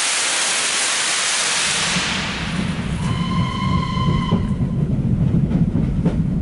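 A steam locomotive blows off steam in a loud, even hiss for about two seconds. Then comes the steady low rumble of a train running, heard from inside a carriage compartment. About three seconds in, a steam locomotive whistle sounds over the rumble for about a second and a half.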